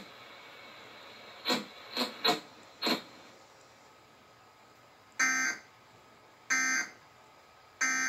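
Emergency Alert System end-of-message data bursts: three short, identical bursts of warbling digital data tones about a second apart, marking the end of the alert. They play through a TV speaker and are picked up in the room. Earlier, about a second and a half in, there are four short sharp sounds within about a second and a half.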